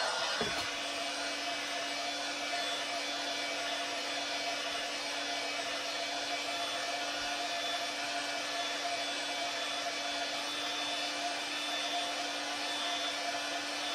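DeWalt electric heat gun running steadily: a fan and motor hum under a rush of hot air, as it heats a Kydex holster to soften it for bending.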